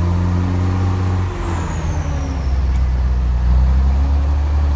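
Scania torpedo truck's diesel engine running, heard inside the cab. About a second and a half in, the sound dips briefly as the gears are shifted, then the engine pulls again at a lower pitch.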